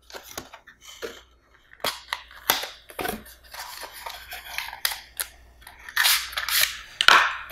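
Cardboard packaging being handled and pried open by hand: irregular scrapes, rustles and sharp clicks as a small inner box is worked out of a CPU retail box, busier and louder near the end.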